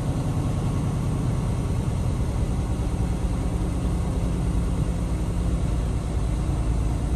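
Semi-truck diesel engine running at low speed, heard from inside the cab, with a steady low drone.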